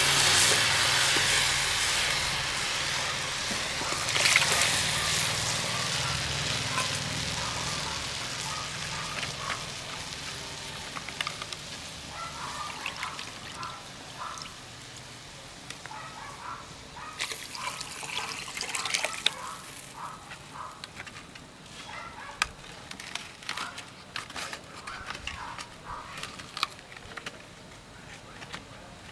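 Tamarind and masala liquid poured into a hot steel kadai of fried onions over a wood fire. It hisses loudly at first, and the sizzle dies away over the first several seconds as the liquid fills the pan. After that the curry base simmers quietly, with scattered faint crackles.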